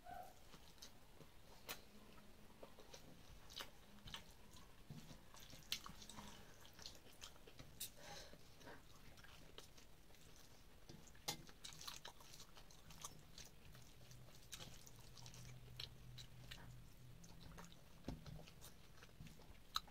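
Faint chewing and mouth sounds of a person eating rice and curry by hand, with scattered soft clicks.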